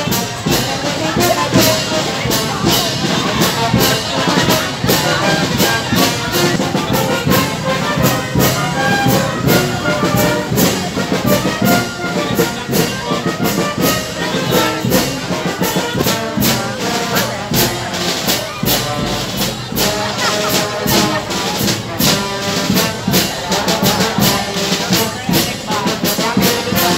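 Brass band playing while marching, trumpets and trombones carrying the tune over a steady beat.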